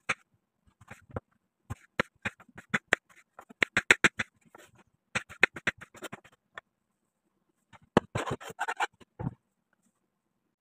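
Kitchen knife slicing a tomato and knocking on a bamboo cutting board: irregular sharp taps, a quick run of chops about four seconds in, and a denser flurry near the end that finishes in a dull thud.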